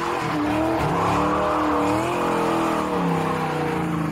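Fox-body Ford Mustang doing a burnout: the engine is revved up and down, its pitch wavering, while the spinning rear tires squeal and smoke.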